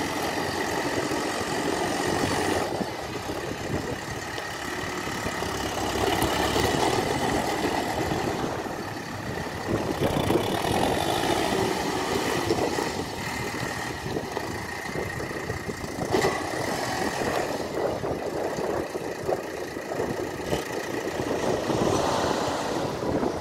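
New Holland T5060 tractor's diesel engine running as the tractor drives slowly around, its loudness swelling and easing a few times.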